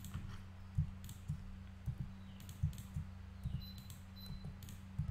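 Computer keyboard keys and mouse buttons clicking, a scattered series of about eight sharp clicks roughly every half second, over a steady low hum.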